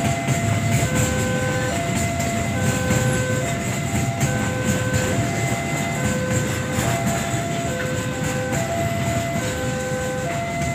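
Freight train of flat wagons rolling past with a steady low rumble and wheel clatter. Over it, the level crossing's electronic warning alarm repeats a two-tone chime.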